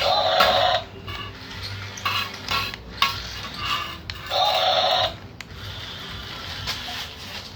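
Short bursts of an electronic, music-like tone, each under a second, repeating about every four seconds, with small clicks and rattles between them.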